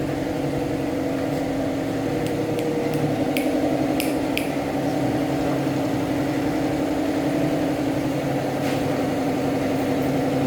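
A motor running with a steady, even hum. A handful of sharp clicks come between about two and four and a half seconds in, and one more later.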